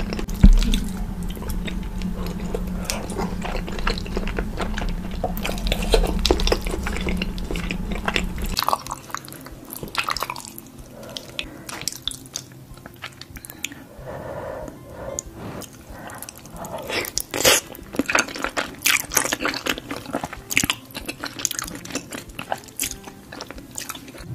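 Close-miked eating sounds of baked cheesy lasagna: wet chewing, sticky mouth sounds and utensil clicks against a ceramic dish, with a loud knock about half a second in. After about eight seconds a low background hum drops out, and the sounds become sharper, separate wet clicks and smacks from a second eater.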